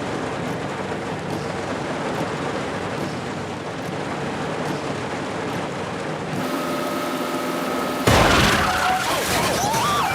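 A steady noisy hiss, then a car tyre bursting with a sudden loud bang about eight seconds in, followed by squealing tyres as the car skids.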